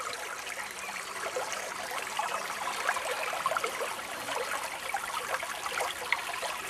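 Small forest river babbling and gurgling steadily as it runs over a jam of fallen branches in a tiny cascade.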